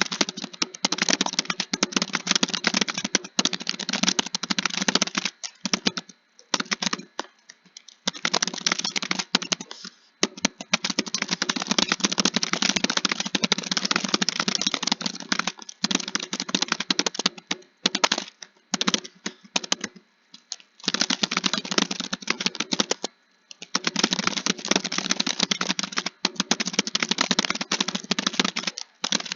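Fast typing on a computer keyboard: dense runs of key clicks broken by brief pauses of about a second every few seconds.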